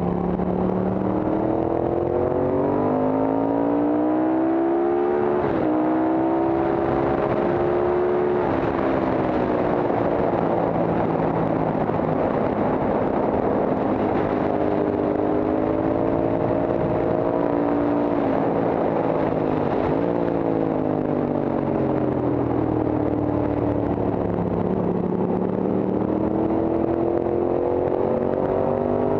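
Horvath Guzzi racing motorcycle's V-twin engine heard from on board under hard acceleration: its note rises, drops with an upshift about five seconds in and climbs again. Wind rush covers it at top speed in the middle, then the engine falls away with quick downshift blips while braking for a bend, and pulls hard again near the end.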